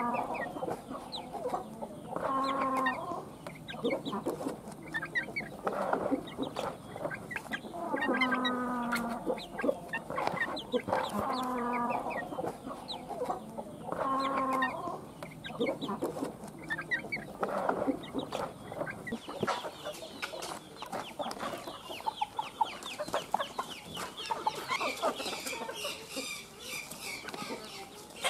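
Chickens clucking, with a long, pitched call repeated every few seconds. From about two-thirds of the way through, many high, quick chick peeps take over.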